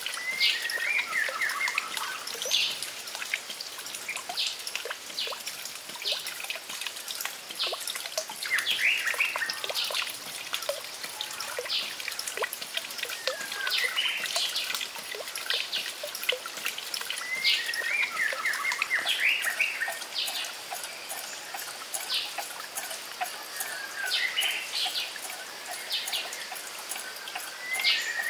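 Songbird repeating a short descending trilled phrase every few seconds, with scattered short chirps, over a steady trickle of running water.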